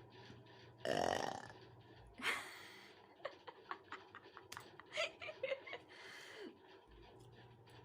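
A young woman's loud, raspy burp about a second in, followed shortly by a breathy rush of air and then a few small clicks and mouth noises.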